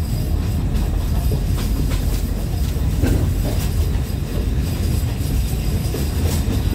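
Narrow-gauge Alishan Forest Railway hinoki-wood carriage running on the rails, heard from inside: a steady low rumble of wheels on track with scattered clicks from rail joints.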